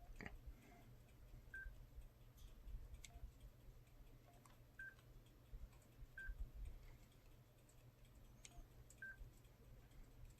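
Kyocera Blade cell phone's keypad beeping faintly as its keys are pressed: four short single-tone beeps at uneven intervals, with a few faint key clicks.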